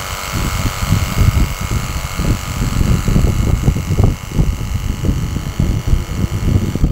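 Strong wind buffeting the microphone in irregular gusts, over the steady hiss and whine of a small electric car-wash pump spraying water; the pump's sound cuts off suddenly near the end.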